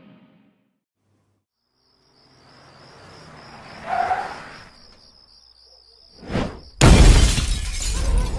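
Production-logo sound effects: a swelling whoosh under a high wavering whine, a short whoosh a little after six seconds, then a sudden loud crash that keeps sounding on.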